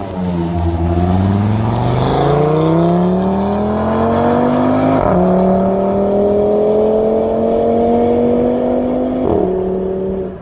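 A car's engine accelerating hard away through the gears, its pitch climbing steadily with an upshift about five seconds in and another about nine seconds in.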